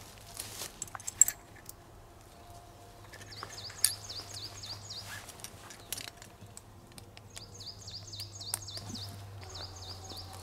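Sharp clicks and rustles of outdoor gear being handled and fastened at a belt, the loudest about a second in. In the background a small bird sings two runs of rapid, repeated, falling high notes over a steady low drone.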